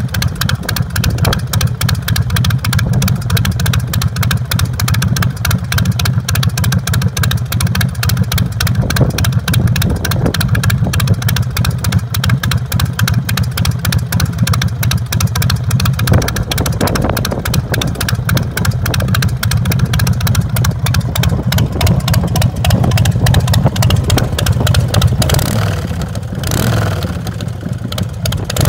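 The 2005 Big Dog chopper's carbureted 117 cubic inch S&S V-twin running through its Paul Yaffe 2-into-1 SuperTrapp exhaust, a deep, rapid, steady pulse of firing strokes. The note changes and briefly dips in loudness near the end.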